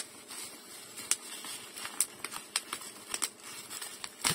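Black plastic bubble-wrap packaging being pulled and torn open by hand: irregular crinkling with sharp crackles and snaps, the loudest near the end.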